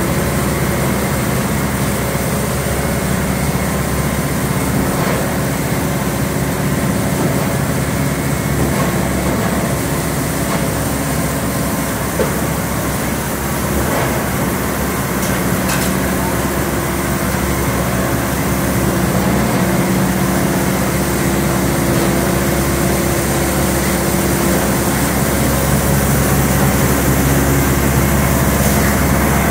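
Tractor engine and Kuhn Primor 3560 straw chopper running steadily as the machine blows chopped straw bedding. It grows a little louder in the second half.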